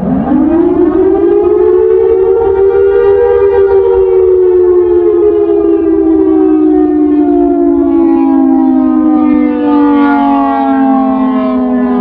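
Siratone EOWS 612 electronic siren, its recording pitched down by half, sounding the attack wail. The tone rises quickly over the first few seconds, then falls slowly through the rest.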